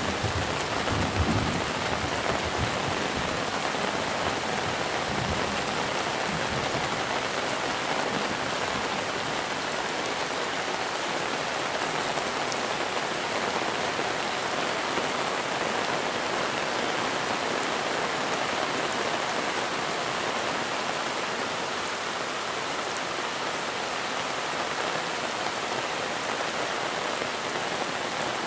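Steady heavy monsoon rain falling, an even hiss of drops on surfaces. A few low knocks sound in the first two seconds.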